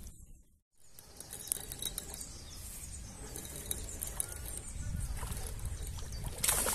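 Soft rustling and handling noise at the water's edge, then near the end a splash as a released carp swims off into the water.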